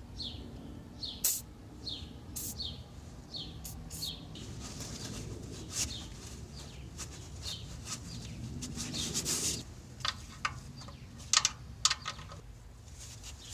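A small bird chirping over and over, each chirp short and falling in pitch, several in the first few seconds. A few short hissing bursts and sharp clicks are mixed in, the loudest clicks near the end.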